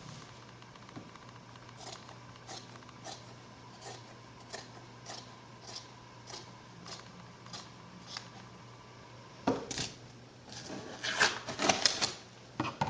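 Scissors snipping through layered blanket fabric in a steady rhythm, a short snip about every half second to two thirds of a second. Near the end the snipping gives way to louder, busier handling noise of the fabric.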